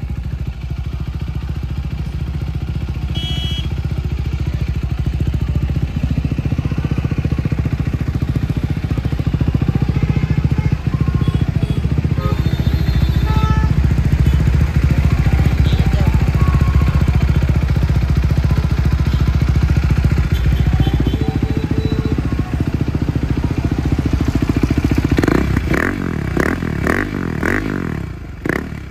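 KTM motorcycle with its exhaust silencer opened up, running with a loud, steady low rumble. Near the end it is revved in a few quick blips, the pitch rising and falling.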